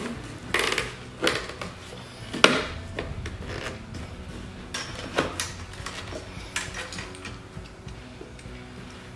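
Scattered sharp clicks and taps of zip ties being pulled tight and handled around a plastic fuel tank strapped onto a small engine.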